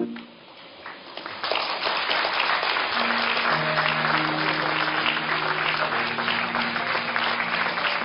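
Audience applause that starts about a second and a half in and keeps going. Background music of long held notes comes in under it a couple of seconds later.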